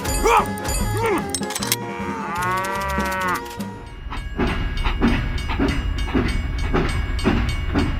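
Cattle mooing in long drawn-out calls, then a steady rhythmic chugging about one and a half beats a second.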